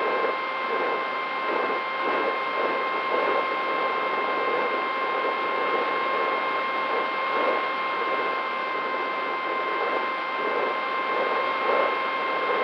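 Brushless motor (DYS Fire 2206 2300KV) and propeller of an FPV flying wing in flight, heard from the onboard camera: a steady high whine at constant throttle over a rough rushing noise.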